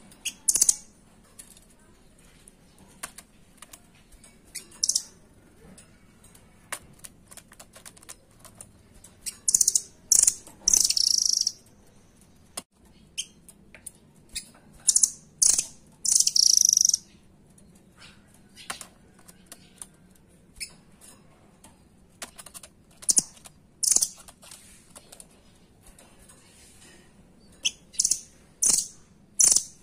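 Caged blue nuthatch giving sharp, high-pitched calls in short clustered bursts, the loudest groups about ten and sixteen seconds in, with light clicks and taps between the calls.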